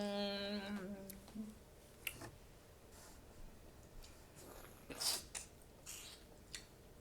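A person hums a satisfied "mmm" for about a second at the start. Scattered wet smacks and clicks of mouth-close chewing follow, the loudest about five seconds in.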